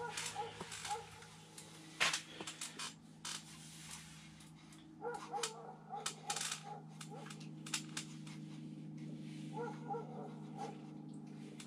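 Small ice-fishing spinning reel being cranked in short spells, a little squeak on each turn of the handle, with scattered sharp clicks over a steady low hum.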